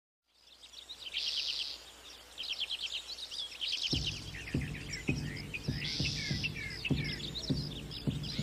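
Small birds chirping and singing in quick trills. About four seconds in, a low beat joins them, pulsing about twice a second like a heartbeat, as a music track begins.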